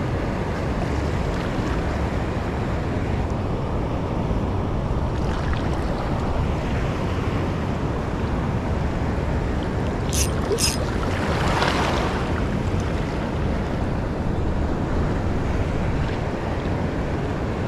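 Wind buffeting the microphone over a steady low rush of surf and sea water on a reef. About ten seconds in come two sharp clicks, then a brief louder rush of water.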